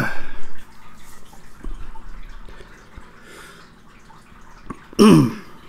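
A man's short, loud, breathy vocal exhales, each falling in pitch: one at the start and one about five seconds in, with a quieter breath between them. He is reacting to the burn of a superhot 7 Pot Douglah pepper.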